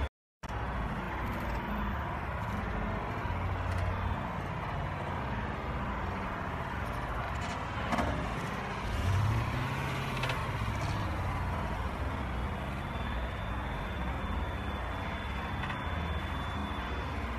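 Steady traffic and vehicle-engine rumble, the low rumble swelling and fading a few times. All sound drops out briefly just after the start.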